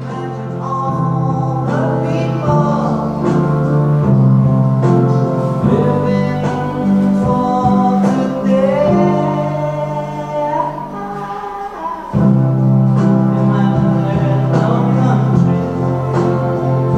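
Background music: a song with singing over guitar and bass, dipping briefly about twelve seconds in before coming back in full.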